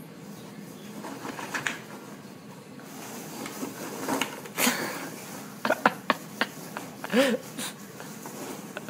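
Foam packing peanuts rustling and crunching in a cardboard box as a small dog burrows through them. There are sharp clicks in a quick cluster about six seconds in, and a short voice-like sound just after seven seconds.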